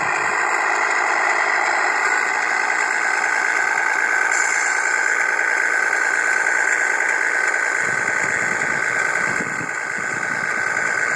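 A large radio-controlled Scania tractor-trailer truck running with a steady, continuous engine-like sound, a little fuller in the low end about eight seconds in.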